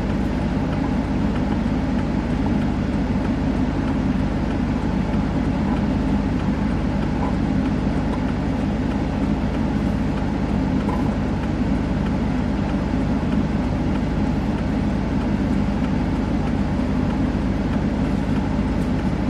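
Steady low rumble of a stopped vehicle's engine idling, with a few constant low hums and an even hiss above.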